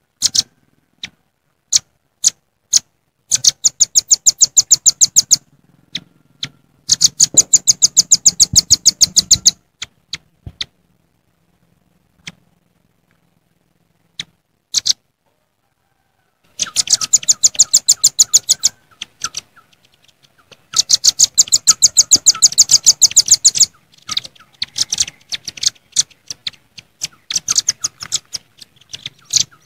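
Velvet-fronted nuthatches (red-billed nuthatches) calling to rivals: loud, sharp, high chips, some single and some in rapid trains of about eight a second lasting two to three seconds, with short silent gaps between.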